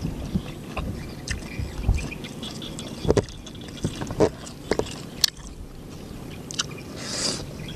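Fresh leafy greens rustling and crackling as they are picked up, torn and folded by hand into a wrap, with scattered sharp clicks and soft chewing sounds.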